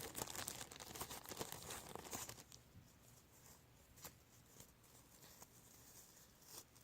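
Crafting materials for a homemade squishy crinkling and rustling as they are handled, for about two seconds. Then near silence with a few faint taps.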